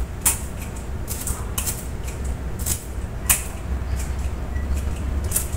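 Plastic trigger-spray head of a homemade bottle water gun being squeezed again and again: a string of irregular sharp clicks with short spurts of spray.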